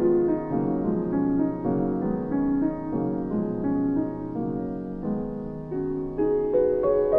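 Background piano music: a slow melody of held notes and chords, moving into higher notes near the end.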